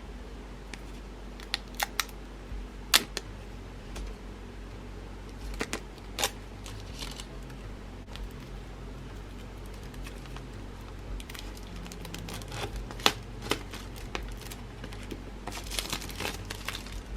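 Handling noise from opening an AirPods Pro retail box: scattered sharp clicks and taps of the cardboard box and its parts, with a run of quick crinkling near the end as packaging is peeled and pulled.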